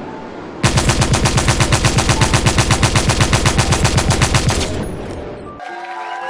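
Machine-gun fire as a sound effect: a rapid, even burst of about ten shots a second. It starts suddenly about half a second in, runs for about four seconds and then fades away.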